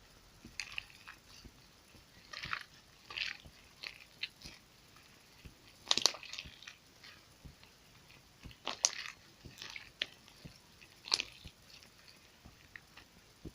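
Slime being squeezed and worked by hand: irregular wet squishing and crackling, with a few sharper pops.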